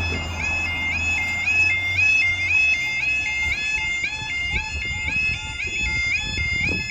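UK level crossing yodel alarm sounding, a two-tone warble repeating about twice a second, warning that the barriers are lowering. A vehicle engine hums beneath it for the first couple of seconds.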